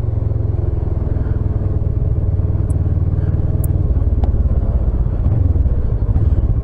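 Kawasaki motorcycle engine running at low speed in stop-start town traffic, a steady low hum whose pulsing beat grows plainer about four seconds in, with a few faint clicks.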